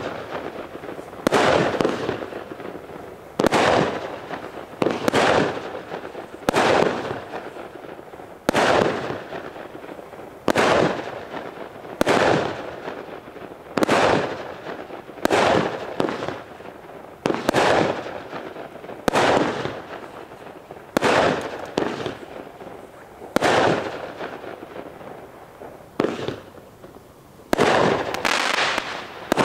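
A consumer firework cake firing one shot after another, a sharp bang about every one and a half to two seconds, each echoing away. Near the end the shots come closer together.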